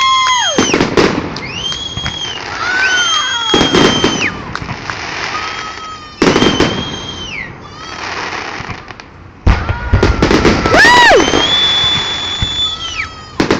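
Aerial fireworks going off: several long whistling shells, each a steady high whistle that bends away at its end, one arcing up and down late on, mixed with sharp bangs and crackling.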